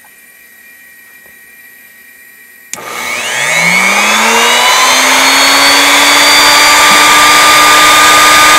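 A 2 HP fixed-base router, mounted as a CNC spindle, is switched on about a third of the way in. Its motor whine rises in pitch as it spins up to speed, then runs steady and loud.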